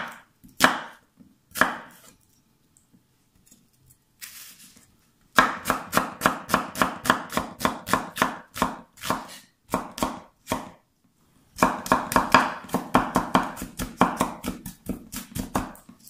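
Chef's knife chopping an onion on a wooden cutting board: a few single cuts, then two runs of quick, even chopping at about four strokes a second with a short pause between.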